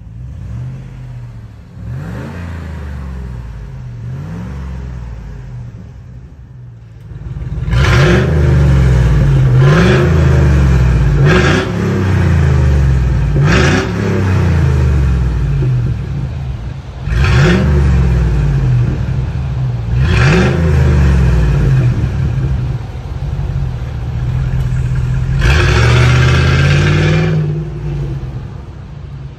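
Hummer H2's V8 exhaust through a custom dual-mode muffler, revved repeatedly. It starts in quiet mode with the vacuum valve closed, then about seven seconds in turns much louder with the valve open on the straight-through path, with a series of rev blips. It fades near the end as the truck pulls away.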